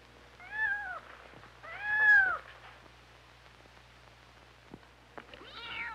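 Kitten meowing three times, high arched meows, the second one the loudest.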